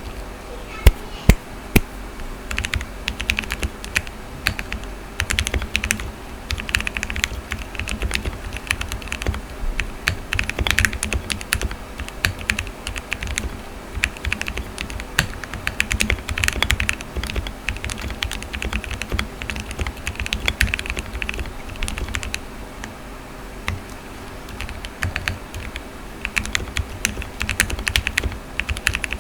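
Typing on a Cheap60 60% mechanical keyboard with lubed Gateron Phantom Brown tactile switches, tape-modded, with PCB foam and lubed Cherry clip-in stabilizers. Fast, steady keystrokes, with a few much louder strokes about a second in and a brief slowdown a little after two-thirds through.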